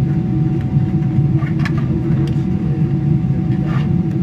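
Steady cabin drone of a Boeing 777-300ER airliner in flight, engine and airflow noise heard from inside the cabin at a window seat: a low rumble with a faint steady whine above it.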